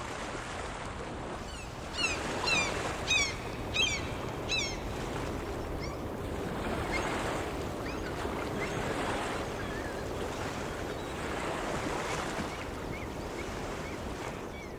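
Steady wash of harbour water and wind. A few seconds in, birds call about six times in quick succession, each call short, high and falling, with a few fainter calls later.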